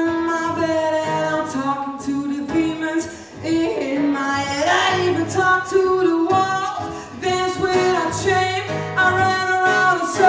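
A woman singing a song into a microphone, accompanied by a strummed acoustic guitar.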